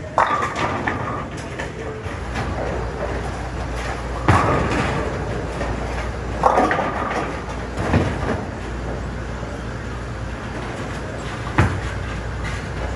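Bowling alley din: a steady low rumble of balls rolling down the lanes, broken by pins crashing several times, most sharply about four, six and a half, eight and eleven and a half seconds in.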